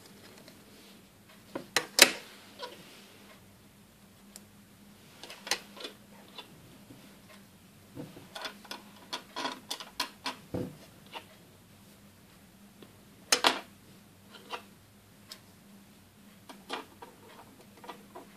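Small hard-plastic Playmobil toy parts clicking and clacking as a folding table and folding chairs are folded and set down on a tabletop: scattered clicks, with a busy run of them in the middle.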